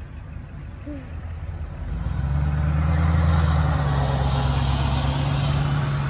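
Ford F-350 plow truck's engine running as it drives close past, coming in loud about two seconds in and holding steady, with the rushing hiss of snow pushed and thrown off the plow blade.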